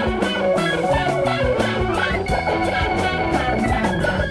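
Instrumental passage of mid-1970s progressive rock: electric guitar to the fore over bass guitar and drums, with no singing.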